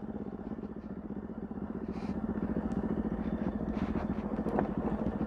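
Motorcycle engine running steadily at low revs as the bike is ridden, slowly getting a little louder.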